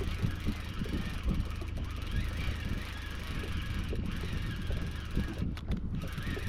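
Wind buffeting the microphone on a fishing boat, over the steady low hum of the boat's motor running at trolling speed.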